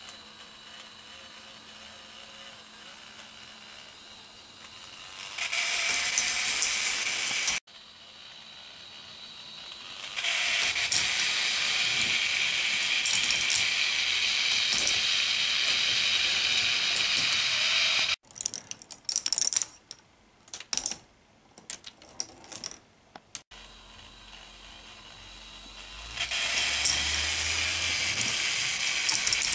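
K'nex ball machine running: its motor-driven lifts whir steadily with a ratcheting, gear-like clicking. In the middle, separate clicks and rattles come from plastic balls knocking along the tracks. The sound level jumps abruptly several times.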